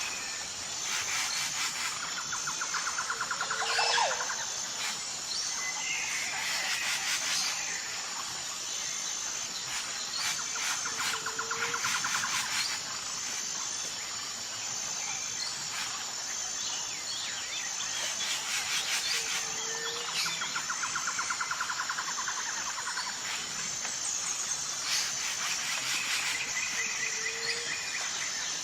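Tropical jungle ambience: a steady, pulsing high insect drone under bird calls, with trills and a falling whistle that come round about every eight seconds.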